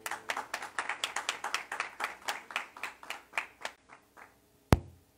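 Applause from a small audience: a run of claps that fades out after about four seconds, then a single low thump near the end.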